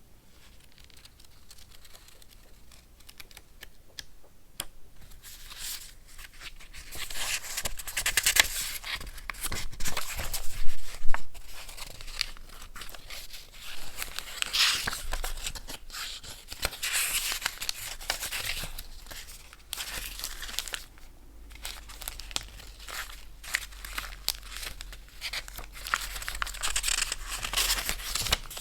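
Paper being torn and crinkled by hand in short, irregular bursts. It starts softly a few seconds in and is loudest around the tenth second.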